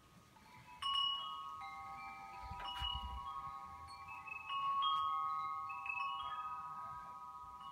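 Wind chimes ringing: a few clear tones struck about a second in, near three seconds and again around five seconds, each ringing on and overlapping the next.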